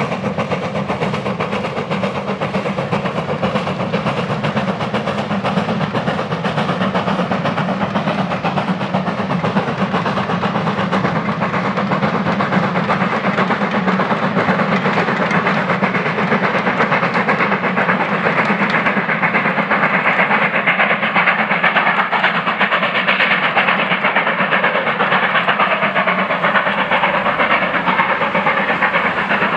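Steam locomotive working a train of coaches past, its exhaust beats and the wheels on the rails making a loud, steady noise.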